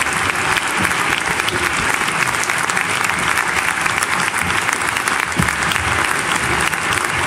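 Audience applauding, a dense and steady clapping that does not let up.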